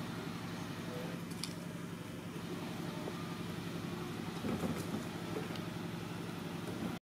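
Steady low mechanical hum like an idling engine, with a few faint high chirps and small rustles over it. It cuts off suddenly at the very end.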